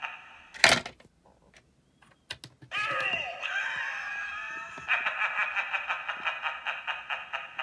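A Gemmy Pop-Up Phantom animated candy bowl plays its spooky sound effects through a small, thin-sounding speaker: rhythmic cackling laughter, a sharp clunk about half a second in, then a wailing, screeching effect with sliding pitch, then cackling again.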